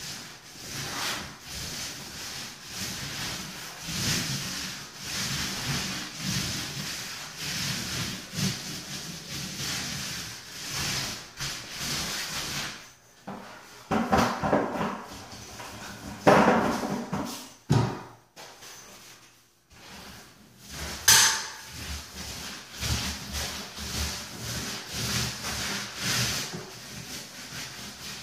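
Paint roller on an extension pole being rolled over a wall in repeated strokes, a rhythmic sticky rasp about once a second. Around the middle it gives way to louder scraping and knocking as the roller is loaded in the paint bucket, with a sharp click a few seconds later, before the rolling strokes start again.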